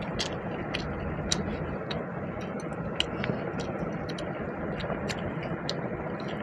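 Person eating pulao and chicken curry: irregular small clicks and smacks of chewing and mouth sounds, several a second, over a steady background noise.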